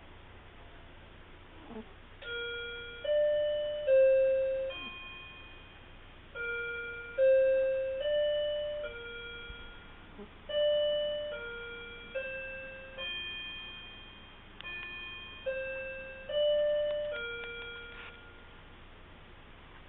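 Chime tune: sixteen ringing, fading notes in four groups of four, each group with a short pause after it.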